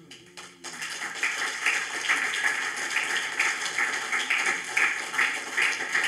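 Audience applauding: many hands clapping, starting about a second in and carrying on steadily.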